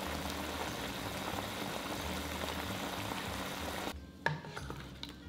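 Braising sauce bubbling and crackling hard in a pot as it reduces over high heat. The bubbling cuts off abruptly about four seconds in, followed by a few light clicks.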